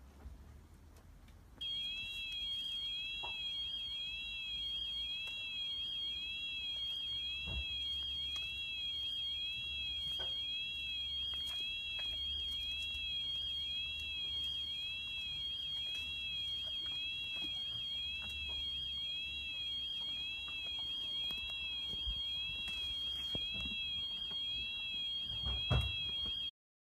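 Robotic lawnmower's alarm sounding after a moose has knocked it about: a steady high-pitched electronic tone that warbles about once a second. It starts a couple of seconds in and cuts off suddenly near the end. A few dull knocks sit faintly beneath it.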